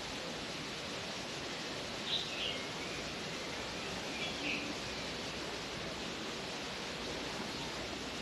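Birds chirping twice in short bursts, about two and four seconds in, over a steady outdoor noise hiss.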